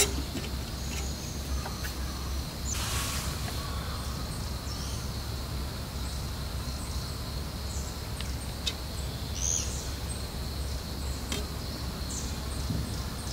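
Woodland ambience: a steady high insect trill over a low rumble, with a few faint bird chirps and a brief hiss about three seconds in.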